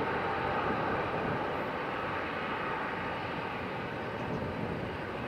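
Jet engine noise of a twin-engine airliner landing: a steady rushing roar that eases slightly as it touches down.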